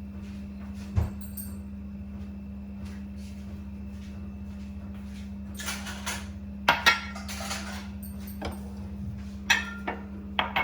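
A pan and glass knocking and clinking as the finished kadha is poured out: one knock about a second in, then a cluster of clinks and knocks with a short rush in the second half, over a steady low hum.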